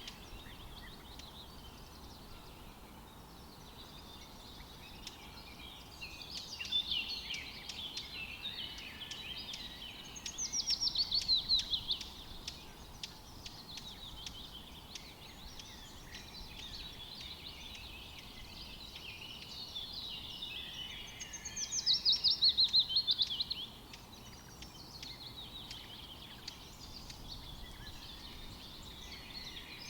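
A forest chorus of several songbirds singing over a faint steady hiss. It is broken twice by a loud trill, about ten seconds in and again near twenty-two seconds, each a couple of seconds of rapidly repeated notes falling in pitch.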